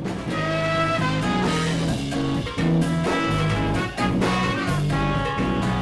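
Jazz-funk band playing: a guitar carries held notes over a steady groove with drum hits.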